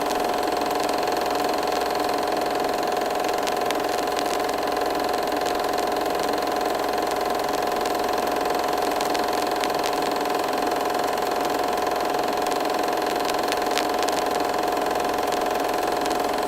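Film projector running: a steady mechanical whir with a constant hum, sprinkled with scattered crackling clicks like old film passing through.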